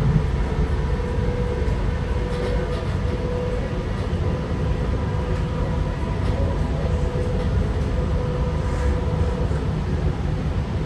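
TriMet MAX light rail train (Siemens S70 car) running between stops, heard from inside the car: a steady low rumble of wheels on track with an even whine from the drive.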